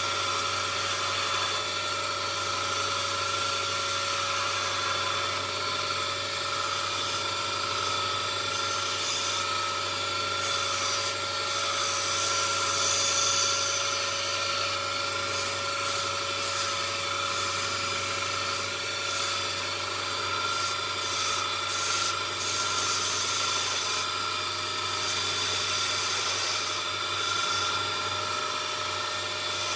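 A small wood lathe running steadily, with the motor's even hum under the scraping of a hand-held gouge cutting a spinning wooden tool handle.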